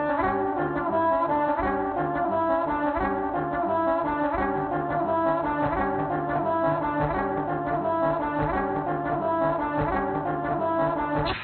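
Trombone playing over looped, layered trombone parts: a busy rhythmic pattern of short notes in several registers at once. It cuts off abruptly near the end on a final accented note that rings away.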